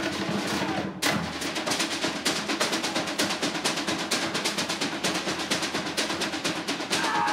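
Fast, even drumming at about five strikes a second, starting after a brief break about a second in.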